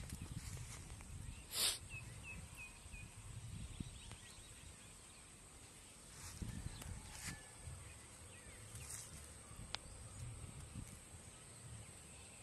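Quiet outdoor ambience with a low, uneven rumble and a few faint knocks and rustles from hands handling and unhooking a caught fish. The loudest is a single thump a couple of seconds in, followed by four faint, quick high chirps.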